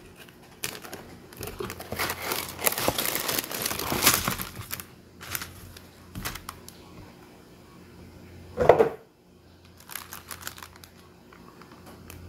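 A cardboard Lego box is torn open by its tab, and the clear plastic bags of bricks and the paper inside crinkle as they are pulled out, with scattered light clicks and taps. A brief louder sound comes about two-thirds of the way through.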